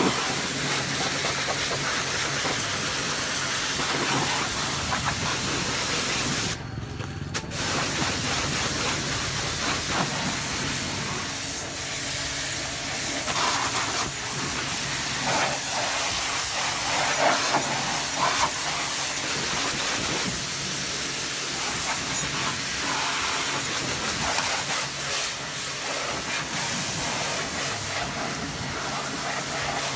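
Pressure washer jet spraying water onto a motorcycle: a loud, steady hiss with a low hum beneath it. The spray cuts out for about a second, around seven seconds in, then resumes.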